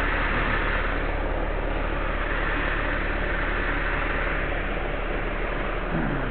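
A heavy engine running steadily at an even speed, with a constant hiss over it.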